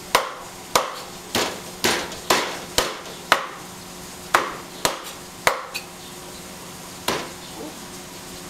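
Chinese cleaver chopping raw chicken on a thick round wooden chopping block. About a dozen sharp chops, roughly two a second at first, then a few spaced-out strokes after the halfway point.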